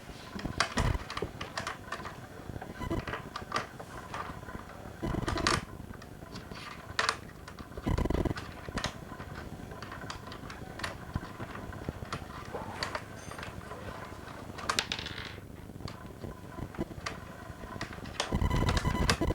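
Hard parts being handled and fitted together: scattered clicks and taps, with a few duller knocks about five seconds in, about eight seconds in and near the end.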